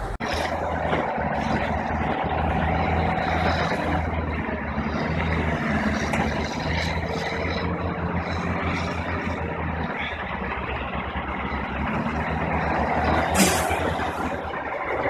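Heavy truck engine running steadily as the truck drives across broken river ice, with a short loud hiss near the end.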